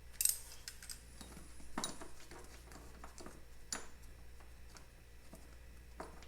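Hand tools being handled on metal: a few sharp metallic clicks and clinks a second or two apart, with faint small ticks between them.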